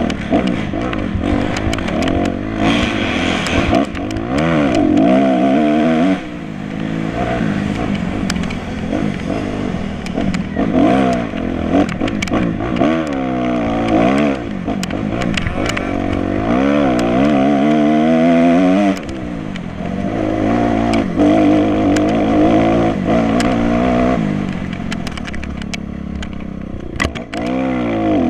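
Dirt bike engine under race throttle, revving up and falling back again and again as it is ridden hard through corners and gear changes, with sharp clicks and clatter throughout.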